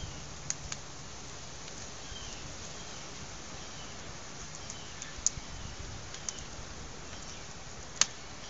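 Wood fire burning in a metal fire ring, crackling: a steady faint hiss broken by sharp pops. Two pops come about half a second in, a few more around five to six seconds in, and the loudest near the end.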